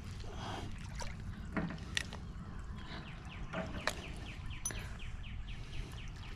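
Light clicks and taps of hands working a circle hook out of a freshwater drum's mouth, over a low steady rumble of water lapping at the edge of the boat ramp.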